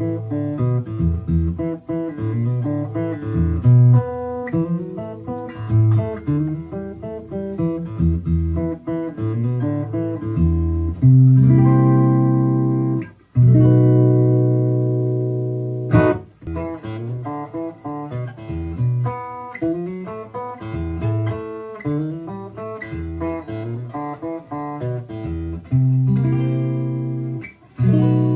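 Guitar played unaccompanied: quick picked notes and runs, with chords left to ring out a few times. There is a sharp click about two-thirds of the way through.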